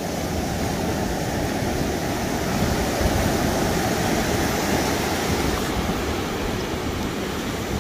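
Ocean surf breaking and washing up the sand: a steady rushing wash of waves.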